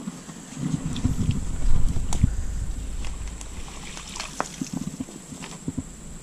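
Cast net being hauled out of a river onto the bank: water sloshing and streaming off the mesh, with a few sharp clicks and taps. The splashy rumble is loudest about two seconds in and then eases off.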